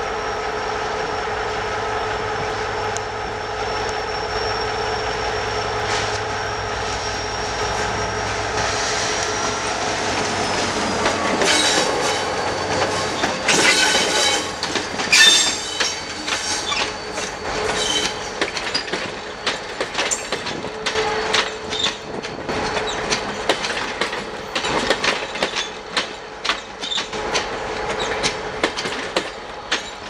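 EMD GT22 diesel-electric locomotive running steadily as it approaches with a high whine, which drops in pitch as it passes about ten seconds in. The passenger coaches behind it then roll by, their wheels clicking rapidly over the rail joints with brief squeals.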